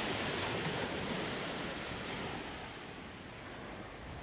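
Sea surf washing up on a sandy beach, a steady rush of breaking waves that is louder for the first second and a half and then eases off.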